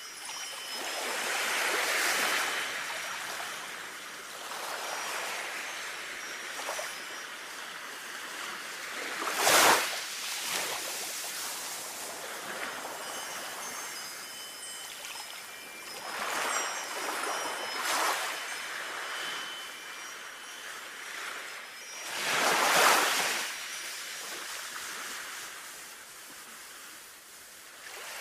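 Sea waves surging and washing back in slow swells, a sharp surge about a third of the way in and another near the end. Faint wind chimes tinkle high above the surf.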